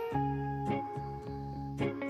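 Background music: a plucked guitar playing a gentle tune, notes changing about every half second.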